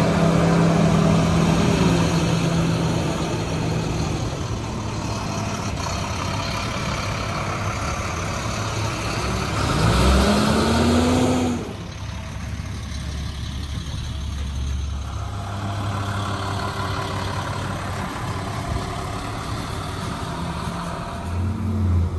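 School bus engines running as the buses drive past. About ten seconds in, one engine revs up with a rising pitch as its bus pulls away, then the sound cuts suddenly to a quieter engine running, with another short rise near the end.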